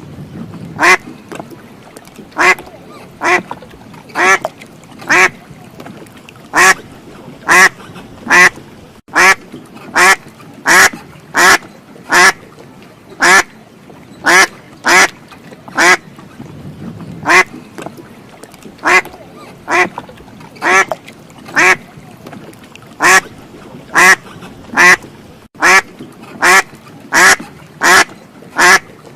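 A duck quacking over and over: single short, loud quacks at a steady pace of about three every two seconds.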